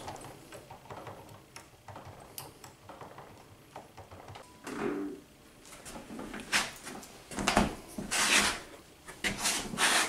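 A key blank being jiggled in the keyway of a Yale padlock held in a bench vise, the impressioning step that makes the pins mark the blank: faint metallic clicks and rattles, then louder scraping and rubbing handling sounds in the second half as the key is worked and pulled out.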